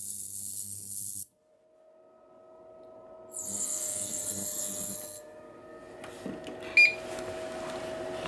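40 kHz ultrasonic cavitation handpiece running, hissing with a low hum as the water on its face is shaken into mist, in two stretches: for about the first second and again from about 3.5 to 5 seconds in. A short electronic beep comes about 7 seconds in.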